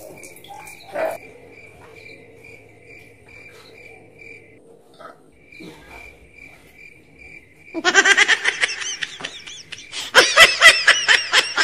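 Crickets chirping in a steady pulsing rhythm. About eight seconds in, loud laughter breaks in, in rapid repeated bursts, and keeps going to the end.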